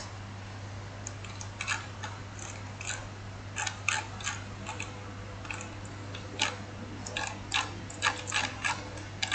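Irregular clicking of a computer mouse and keyboard, sparse at first and then coming in quick clusters, over a steady low electrical hum.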